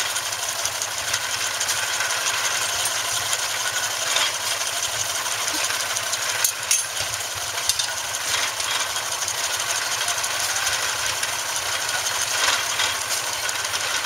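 Steam engine driving an antique straw baler by a long flat belt, the machinery running steadily with a dense, rapid mechanical clatter and a few louder knocks.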